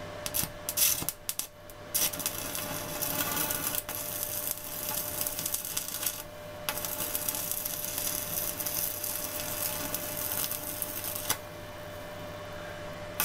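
Stick (MMA) welding arc from an inverter welder crackling as the electrode fills a hole blown through thick steel box section. The arc breaks off briefly twice and goes out about eleven seconds in.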